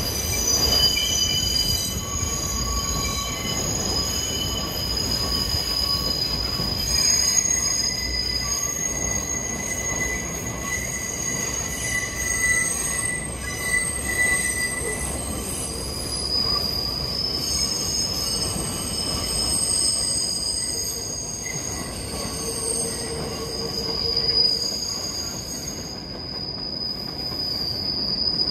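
New York City subway train running on the rails with its wheels squealing. Several high, steady squeal tones come and go over a low, continuous rumble.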